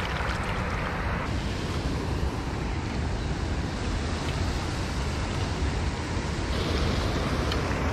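Steady rush of water pouring over a canal spillway.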